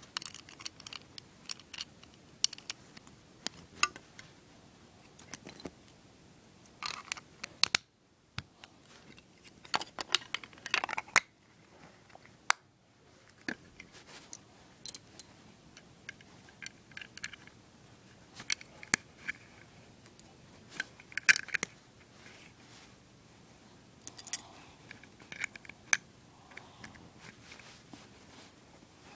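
Plastic Lego bricks being handled and pressed together: irregular sharp clicks of plastic on plastic, with some rustling between them.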